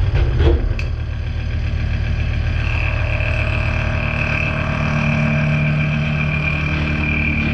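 Mazak horizontal machining centre running while milling AR400 steel plate: a steady machine hum, with a couple of sharp clicks right at the start and a high, steady whine that joins about three seconds in.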